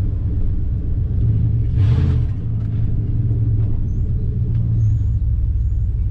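Steady low engine and road rumble heard inside the cab of a truck driving slowly. A brief hiss comes about two seconds in.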